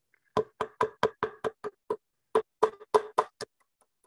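Hammer driving a small nail into a wooden board: about a dozen quick knocks, roughly four a second, in two runs with a short pause about halfway through.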